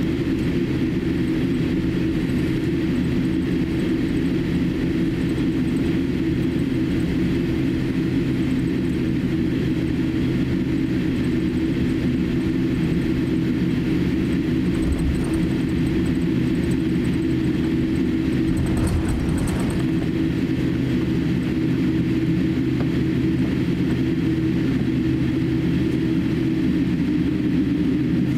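Cabin noise of a Boeing 787-8 taxiing: a steady low hum from the idling GEnx-1B turbofans and the cabin air, with no change in level. About two-thirds of the way through there is a brief low thud with a light rattle.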